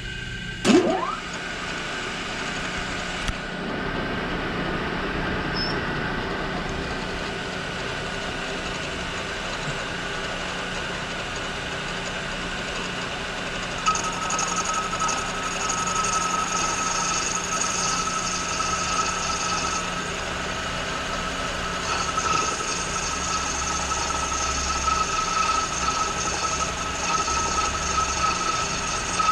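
Machine spindle running with a boring head cutting out a bore in a zinc die-cast carburetor float bowl. A short rising sweep comes about a second in, and from about halfway a steady high whine with a thin hiss rides over the machine hum as the cut goes on.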